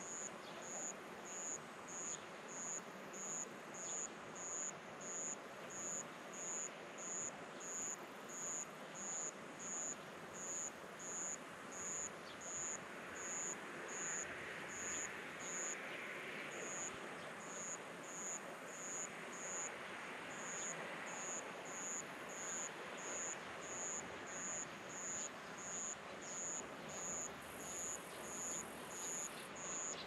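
An insect chirping in a steady, regular rhythm, about three short high-pitched chirps every two seconds, over a steady background hiss.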